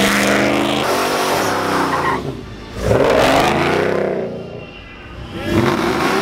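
Car engine revving hard, its pitch climbing and falling as the throttle is worked, with the revs dropping away twice, about two and a half and five seconds in, amid tyre noise of a burnout.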